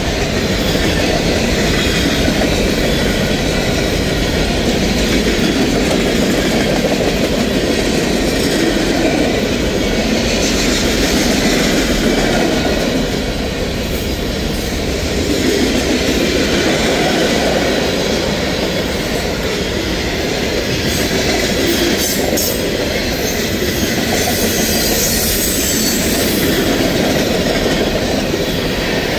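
Freight cars of a CSX mixed manifest train rolling past at speed: a steady, loud rumble and rattle of steel wheels on the rails.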